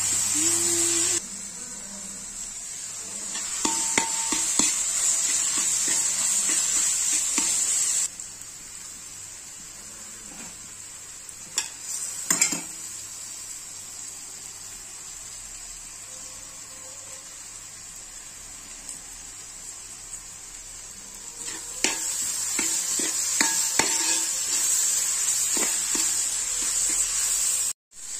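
Sliced onions frying in oil in a metal pan, sizzling steadily while a steel spatula stirs them, scraping and clinking against the pan now and then. The sizzle is louder in the first eight seconds and again over the last several seconds, quieter in between.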